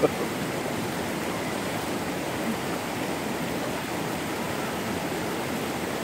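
Steady rush of a small creek spilling over rocks in a low cascade.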